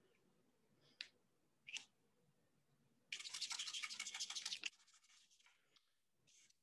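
A paintbrush scrubbed rapidly back and forth on paper, a run of quick scratchy strokes at about ten a second lasting a second and a half, after two faint clicks.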